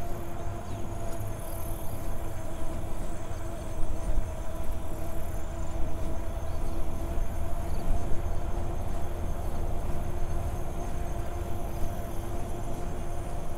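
Bicycle riding noise: wind rumble on the microphone and a steady hum from the moving bike, with a few small bumps.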